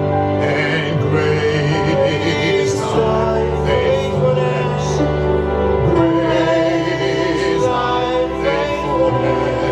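Gospel worship music: singing over long held chords.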